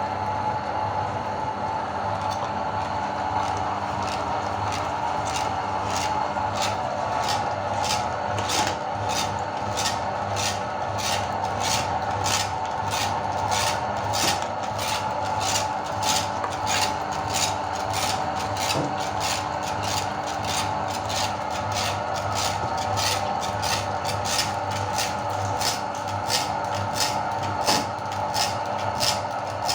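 Electric meat grinder running steadily while grinding candy, its motor humming, with sharp regular clicks about twice a second from the hard candy being crushed in the grinder.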